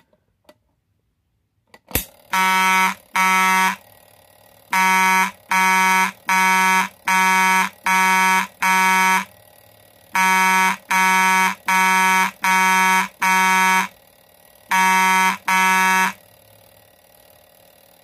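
A click from the pull station's lever about two seconds in. Then a Simplex fire alarm horn sounds the Couch pull station's code 2-6-5-2 in short, loud buzzing blasts: two, a pause, six, a pause, five, a pause, two.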